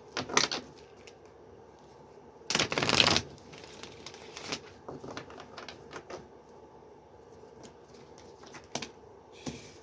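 Tarot cards being shuffled and handled: a short loud rustling shuffle about two and a half seconds in, with scattered light clicks and taps of cards throughout.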